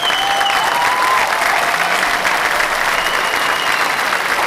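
Large crowd applauding steadily, with whistles in the first second and again about three seconds in.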